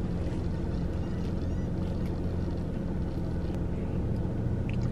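Steady low hum inside a parked car.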